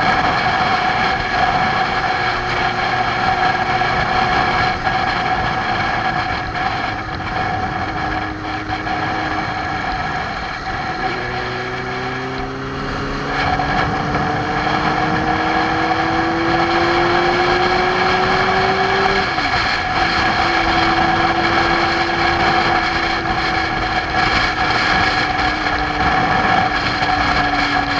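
Motorcycle engine running as the bike rides along at road speed, its pitch climbing slowly and falling back twice, about 11 and 19 seconds in, over steady wind and road noise on a bike-mounted camera.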